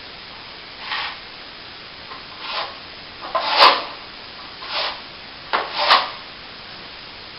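Hand plastering tool scraping across a plastered wall in about five short strokes, the loudest two each with a sharp click.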